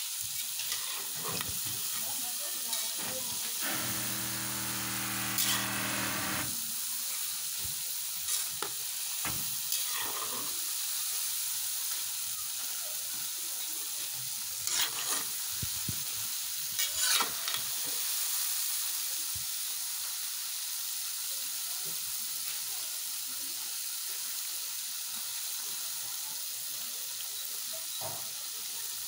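Pieces of daddies dough (chin chin) deep-frying in hot oil in a metal pot: a steady sizzle, with a few short scrapes as a metal slotted spoon stirs them. About four seconds in, a steady droning tone sounds for a couple of seconds.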